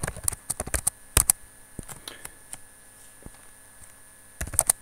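Computer keyboard typing: a quick run of keystrokes in the first second or so and another short run near the end, with a steady faint hum underneath.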